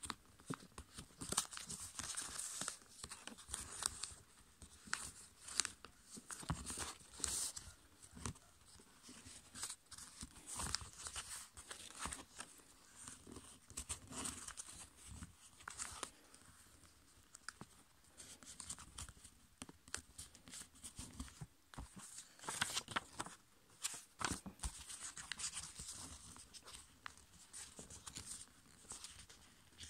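A sheet of A5 copy paper being folded and creased by hand, with irregular scratchy rustling and crinkling as fingers press and run along the folds.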